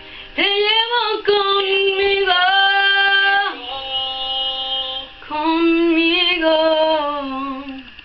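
A female voice singing a wordless melody in long held notes that slide from one pitch to the next. It breaks off briefly about five seconds in, then carries on, and the last note slides down and fades near the end.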